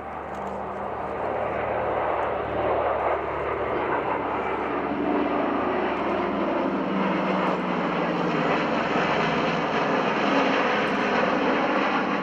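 Formation flypast of a Lockheed Super Constellation, with its four Wright R-3350 radial piston engines, and six Northrop F-5E Tiger II jets: a steady drone of mixed propeller-engine and jet noise. It grows louder over the first two seconds, with a few engine tones that slowly shift in pitch as the aircraft pass.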